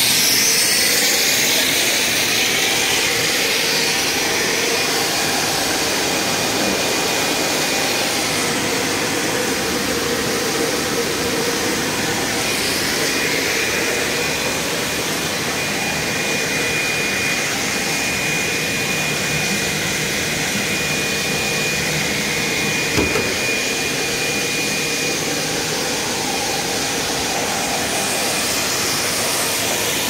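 Plastic hose extrusion line running: a steady whirring machine noise with a steady high whine over it, and one brief click about 23 seconds in.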